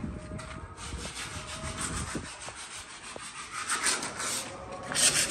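Sandpaper rubbed by hand over a rusty steel door panel in quick back-and-forth strokes, scraping off the rust before primer. The strokes grow louder near the end.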